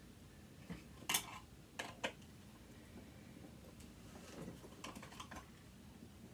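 Small metallic clicks and clinks of a hand tool working on a stuck part of a sewing machine motor: a few sharp taps in the first two seconds, then fainter scattered clicking.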